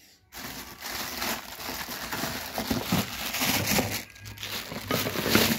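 Rustling and crinkling noise that starts abruptly about a third of a second in and goes on unevenly, rising and falling in loudness, with a dip about four seconds in.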